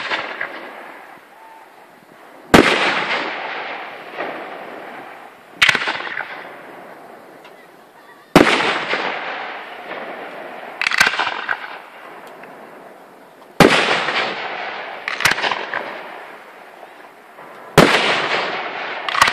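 Aerial firework shells bursting: about seven sharp bangs, two to three seconds apart, each followed by a fading tail that lasts a couple of seconds.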